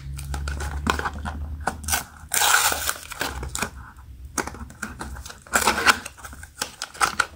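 A small cardboard blind box being handled and torn open: fingers tapping and scraping the card, with two short tearing rips as the top flap is pulled open, about two and a half seconds in and again near six seconds.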